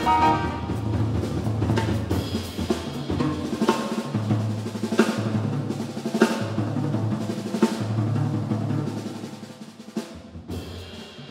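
A jazz drum kit playing with snare rolls and cymbal strikes about every second or so, over held double bass notes, as a trumpet phrase ends just at the start. The music gets quieter near the end.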